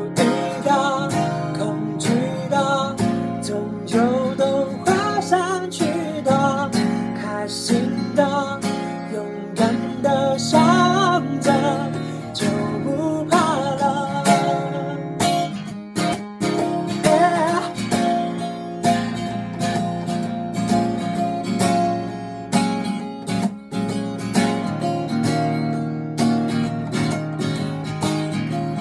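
A capoed acoustic guitar strummed in steady chords, with a man singing a melody over it.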